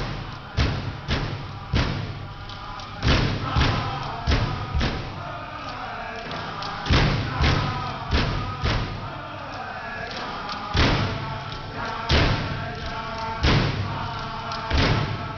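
Inupiaq frame drums, skin stretched on wooden hoops, struck in unison by a row of drummers with a group of singers chanting over them. The loud drum beats fall about twice a second in runs, with a couple of short pauses while the singing carries on.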